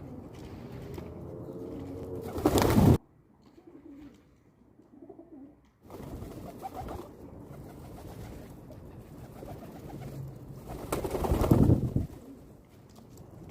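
Pigeons cooing and stirring, with two loud noisy bursts: one about two and a half seconds in that cuts off suddenly, and one longer burst about eleven seconds in.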